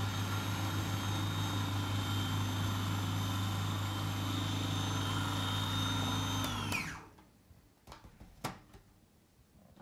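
Small electric food processor running at a steady speed, blending fruit with a splash of soy milk until smooth; the motor winds down and stops about seven seconds in, followed by a couple of light clicks.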